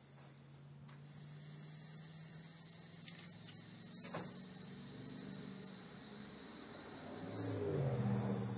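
Bull snake hissing, a long continuous hiss that grows louder toward the end. This is the defensive hiss by which a bull snake mimics a rattlesnake.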